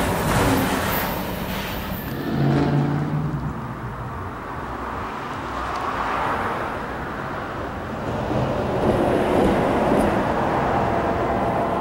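Rail noise from the tail of a passing freight train fades out over the first couple of seconds. After that there is steady outdoor vehicle noise with an engine hum.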